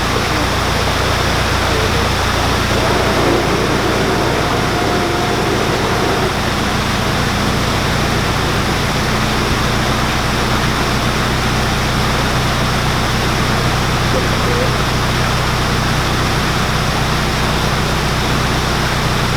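Narrowboat engine idling steadily, a low even hum, under a constant rushing hiss.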